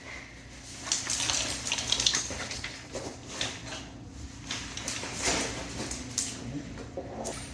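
A person breathing heavily and loudly in uneven, noisy breaths, staged as the cue for a psychiatric service dog's anxiety alert, with some clinking and rustling as the dog moves.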